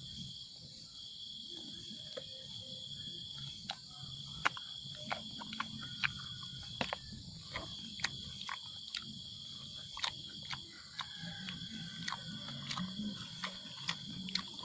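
Night insects trilling steadily at a high pitch, with a low hum beneath. From a few seconds in there are many sharp clicks, about two a second.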